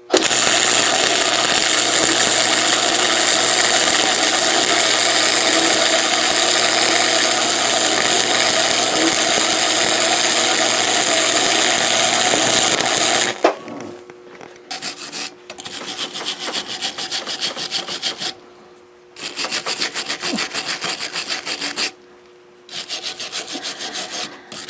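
A power tool grinds metal steadily for about thirteen seconds, then stops. It is followed by a run of short crackling bursts with brief pauses between them: MIG welding the bolt to the lug nut.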